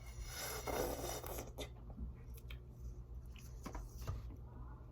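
Rustling and scraping of food and its packaging being handled during eating, then a few light clicks and taps.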